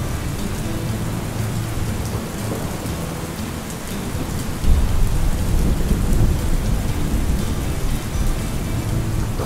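Steady rain with rolling thunder; a deep thunder rumble swells about halfway through and carries on.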